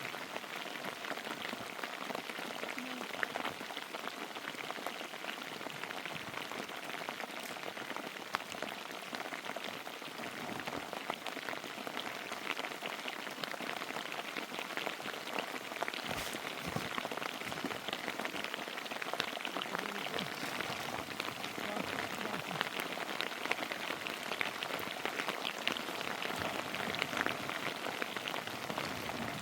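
Rain falling steadily, a dense patter of many drops.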